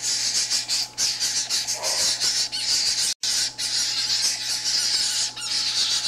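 Toucan chicks begging, a continuous harsh, hissing chatter of rapid squawks. It cuts out for an instant about three seconds in.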